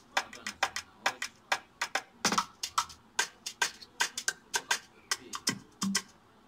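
Computer keyboard keys being typed, a rapid, irregular run of sharp clicks several times a second, with a couple of brief low thuds in between.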